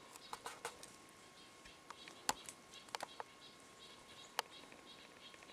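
Footsteps on a dry, rocky forest trail: faint, scattered crunches and clicks, a sharper one a little past two seconds in and another just past four seconds. A faint rapid high chirping runs underneath from about the middle on.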